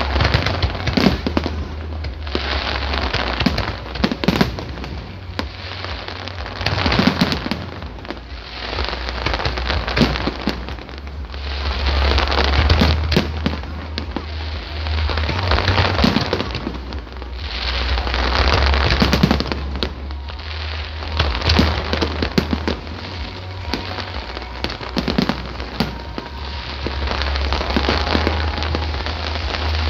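Fireworks display: a continuous run of aerial shells bursting one after another, sharp bangs mixed with crackling, over a steady low rumble.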